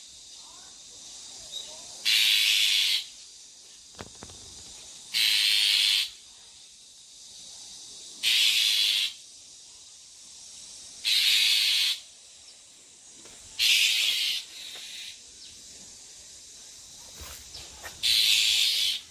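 Bull-headed shrike giving harsh, hissing rasps about a second long, six times, two to three seconds apart. This is the unusual scolding call of a parent shrike guarding its brood of chicks.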